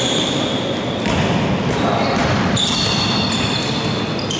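Basketball game sounds in a reverberant gym: a ball bouncing, sneakers squeaking briefly on the court and players' voices over a steady hubbub.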